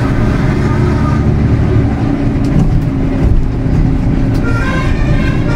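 Tour bus engine and road noise heard from inside the cab while driving, a steady low rumble.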